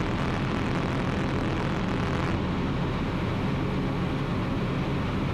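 Ultralight aircraft's piston engine and propeller running steadily in flight, a constant low drone under a layer of hiss. The hiss thins a little just over two seconds in.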